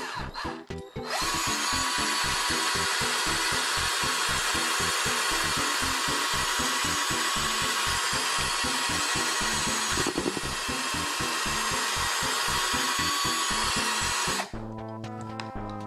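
Handheld power drill running at speed, spinning a corn cob against the teeth, with a steady motor whine. It starts about a second in and cuts off abruptly near the end.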